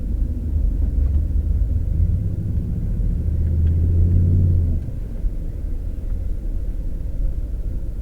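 Low rumble of a car driving, engine and road noise heard from inside the cabin; it eases off and gets quieter about five seconds in.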